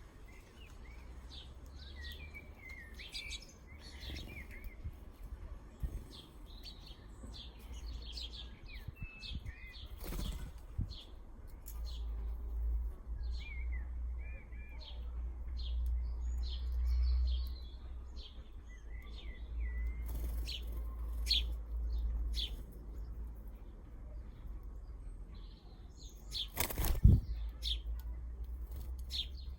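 Small garden birds chirping and twittering in many short calls over a low rumble. A sharp thump near the end is the loudest sound, with a softer one about ten seconds in.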